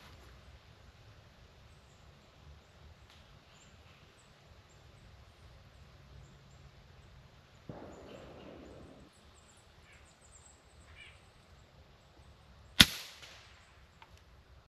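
A single shot from an FX Impact M3 PCP air rifle fitted with a suppressor, a sharp crack about 13 seconds in that dies away quickly. A short rustle of handling comes a few seconds before it.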